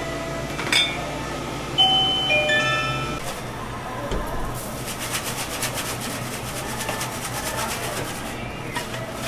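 A few chime-like tones in the first three seconds, then hot oil in a deep fryer sizzling and crackling densely as liquid is poured into the fryer basket and the basket is lifted and shaken.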